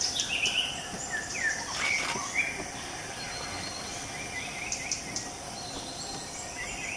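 Forest ambience: several birds calling in short chirps and quick sliding notes over a steady high insect drone.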